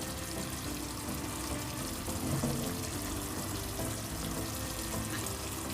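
Spiced curry gravy sizzling and bubbling steadily in a pan at the boil.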